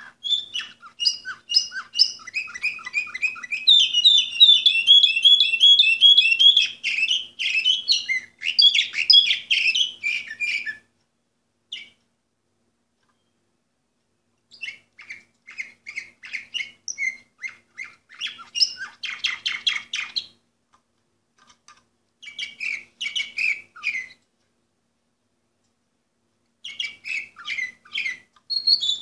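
Orpheus song canary singing: one long run of rolling, trilled notes, then a pause, then shorter phrases with gaps between them, one of them a fast trill.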